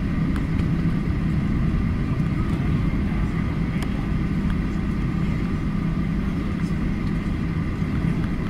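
Cabin noise inside a Boeing 737 taxiing: a steady low rumble and hum from the idling jet engines and the airframe rolling over the taxiway, with a few faint clicks.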